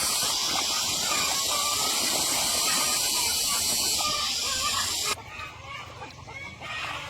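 A loud, steady high-pitched hiss that cuts off suddenly about five seconds in, with chickens clucking faintly underneath.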